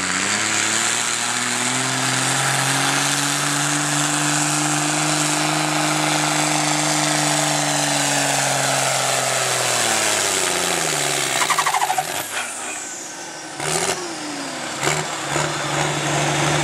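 John Deere 4440 tractor's turbocharged six-cylinder diesel under full load pulling a weight-transfer sled. The revs climb over the first couple of seconds, hold steady and high, then drop away about ten seconds in with a falling whine, and it settles to a lower steady run near the end with a few knocks.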